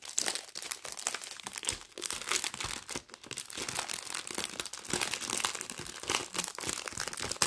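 Clear plastic packaging of a diamond painting kit crinkling as it is unwrapped by hand and its small zip bags of beads are handled: a dense run of crackles and rustles.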